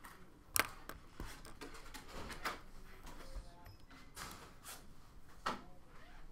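Scattered knocks and clicks of a graphing calculator being handled and set down on a desk, its keys pressed, with soft rustling between; the sharpest knocks come about half a second in and near the end.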